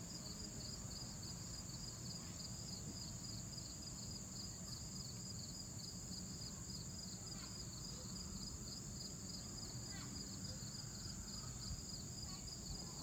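Chorus of crickets and other insects: one steady high buzz, with a faster pulsing chirp just below it.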